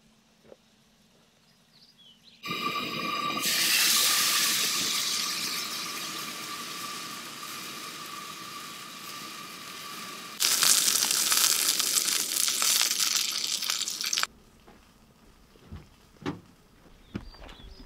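Propane camp stove cooking: from about two seconds in, a loud hiss with a steady high whine, then a louder sizzling hiss from the cast-iron skillet for a few seconds. The last few seconds are quiet, with a few soft knocks.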